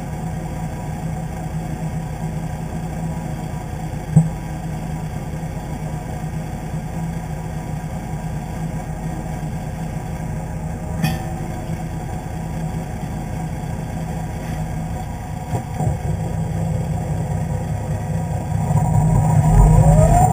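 Volvo semi-truck's diesel engine idling steadily, heard from the chassis behind the cab, with a single sharp knock about four seconds in. Near the end the engine note gets louder and rises in pitch as the revs pick up.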